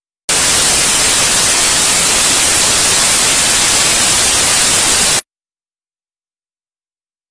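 Loud, even static hiss like white noise, starting abruptly just after the start and cutting off abruptly about five seconds in.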